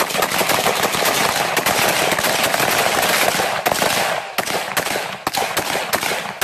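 Many assault rifles firing rapidly at once along a firing line, the shots overlapping into a dense, almost continuous rattle that thins slightly near the end.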